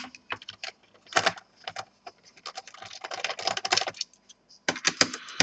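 Screwdriver backing out screws from the plastic base of an Acer Aspire 7535 laptop: a run of sharp clicks and light rattles, with a denser clatter of clicks about three seconds in.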